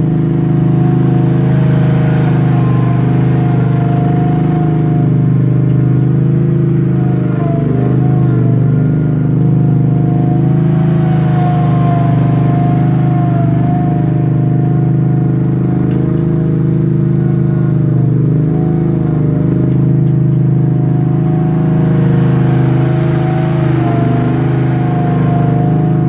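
Wacker Neuson RD12 ride-on roller's 24 hp Honda V-twin engine running steadily as the roller drives, with a thin whine above it that wavers slightly in pitch.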